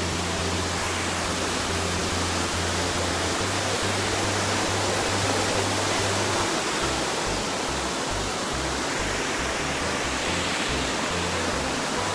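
Steady rush of a waterfall, with low notes of music underneath.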